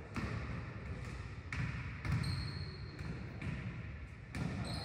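Basketballs bouncing on a gymnasium's hardwood floor: about five separate thuds at irregular intervals, over the low background of players moving about the court.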